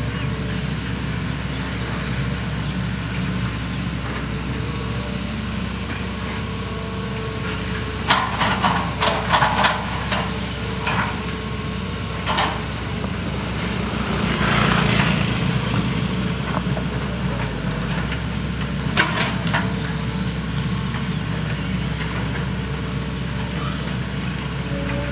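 Two hydraulic excavators, a Hitachi EX200-5 LC and a Sumitomo SH120 long reach, running their diesel engines steadily while digging. A quick run of metal clanks comes about a third of the way in, with a few more single knocks later and a rushing hiss swelling in the middle.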